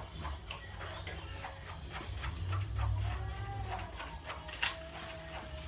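Stirring a sticky mix of glue, shaving cream and food colouring in a bowl: a run of wet squishing and clicking strokes. A child's voice makes a couple of drawn-out tones over it.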